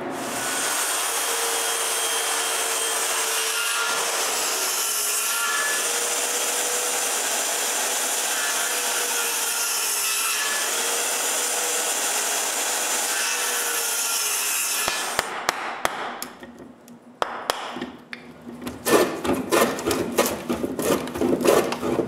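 Corded circular saw running and cutting through a thick softwood timber for about fifteen seconds, its pitch wavering as it loads, then shutting off. After that comes a hand plane trimming a tenon in repeated rasping strokes, faster near the end.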